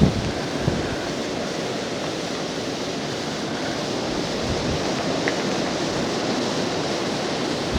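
Strong blizzard wind buffeting the camcorder microphone: a steady rushing noise, with a couple of brief low thumps near the start.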